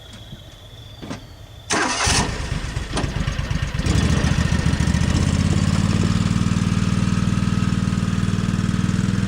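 An engine starting: a short loud burst, then it turns over and catches about two seconds in and settles into a steady idle.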